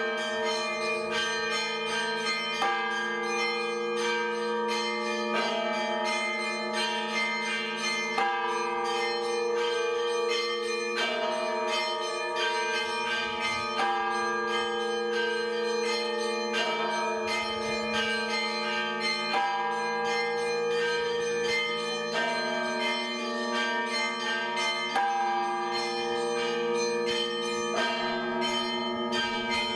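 Bells ringing in a continuous peal: several bells struck one after another every second or two, their tones overlapping over a steady low hum.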